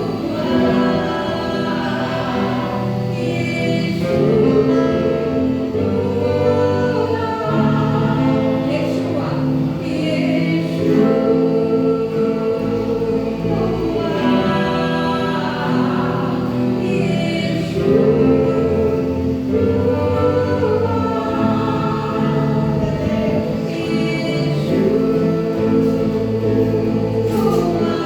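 Slow gospel worship music: singing voices hold long, wavering notes in phrases a few seconds long over a steady low accompaniment.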